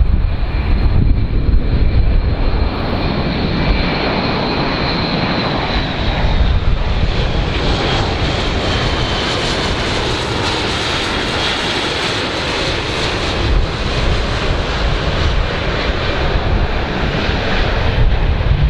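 Airbus A400M Atlas's four turboprop engines, with their eight-bladed propellers, running as it flies low on approach. A steady, loud drone carries a high whine that slowly falls in pitch over the first half, and the sound grows fuller as the aircraft passes close.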